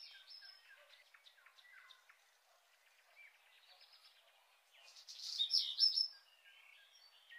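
Birds chirping: many short, high calls, with a louder run of calls about five seconds in.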